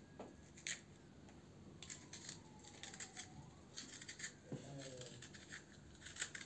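A black radish being hollowed out: faint, crisp scraping and cutting strokes of a scoop or knife through the hard radish flesh, in irregular short clusters.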